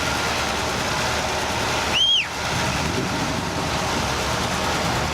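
Steady motor-vehicle noise. About two seconds in, a short high squeak rises and falls.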